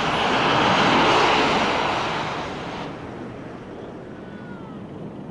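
Airplane passing close by on the runway, its engine roar swelling to a peak about a second in and dying away by about three seconds.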